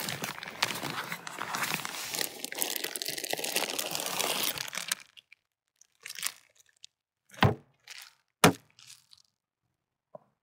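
Plastic bags crinkling and rustling steadily for about five seconds while a bag is rummaged through and a zip-top bag is pulled out. Then a few separate short clicks and knocks, the two loudest about a second apart.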